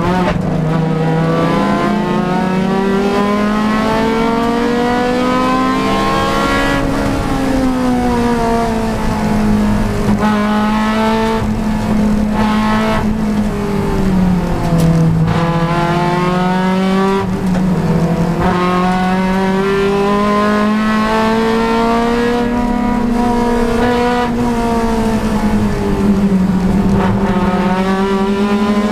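Honda Civic Si race car's engine pulling hard at racing speed, its pitch rising under acceleration and falling as it slows, with a few brief breaks in the note at gear changes or lifts.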